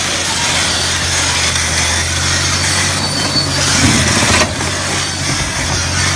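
Caterpillar D8R crawler dozer's diesel engine running steadily close up, a low hum under a loud rushing noise.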